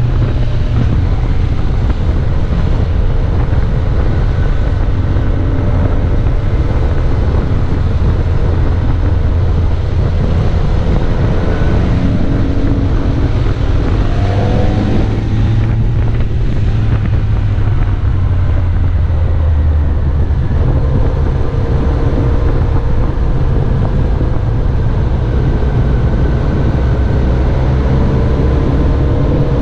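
Onboard sound of a vehicle's engine running, its revs rising and falling several times, under steady wind noise on the microphone.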